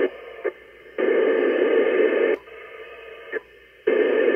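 Icom IC-9700 transceiver's speaker giving three bursts of FM receiver hiss, each a second or so long with short clicks between. This is the ISS voice repeater's downlink breaking the squelch with no voice on it, as stations key up during the pass.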